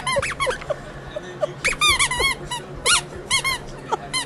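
A dog squeezing a squeaky toy, making quick runs of short, high squeaks that rise and fall in pitch.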